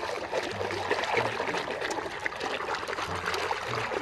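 Water trickling and splashing as a muddy toy vehicle is washed by hand, with small drips and sloshes throughout.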